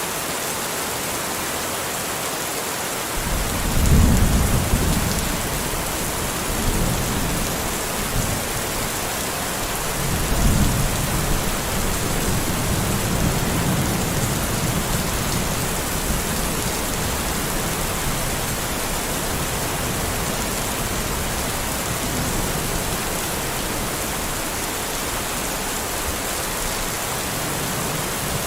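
Steady rain with thunder. A low rumble swells about three seconds in, and another comes about ten seconds in and rolls on for several seconds.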